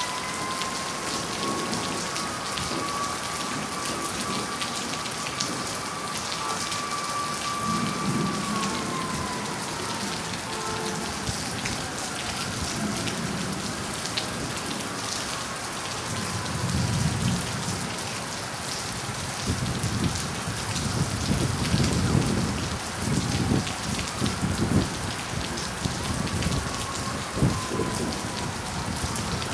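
Steady rain falling on surfaces during a thunderstorm, with thunder rumbling low from about eight seconds in and more strongly through the second half.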